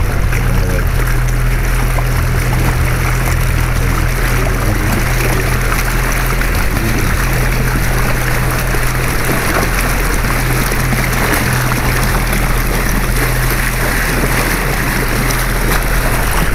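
Canal tour boat under way: its motor runs with a steady low hum while water rushes along the hull.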